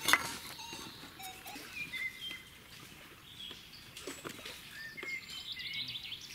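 A sharp knock at the very start, then small birds chirping and calling, with a quick trill about five seconds in.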